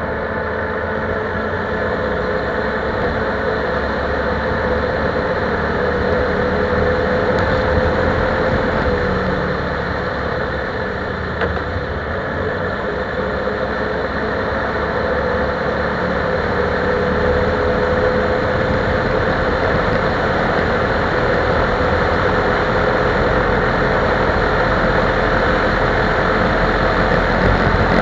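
ATV engine running steadily while riding a dirt trail, growing louder past the middle as it picks up speed.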